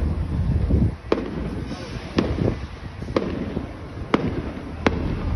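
Fireworks display: five sharp firework bangs, about one a second, over a low rumble.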